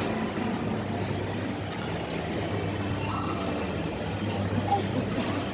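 Steady low mechanical hum holding one pitch throughout, over a constant rumble.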